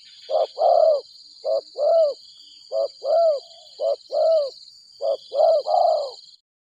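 Spotted dove (tekukur) cooing in a repeated phrase: a short coo followed by a longer, arched coo, given five times, with the last phrase ending in two long notes. A steady high-pitched buzz runs underneath.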